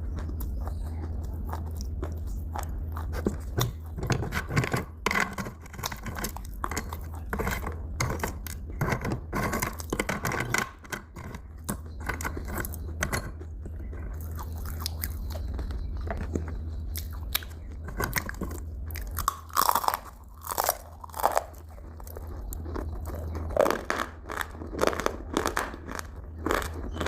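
A person biting into and chewing crunchy food, in clusters of sharp crackling crunches, over a steady low hum.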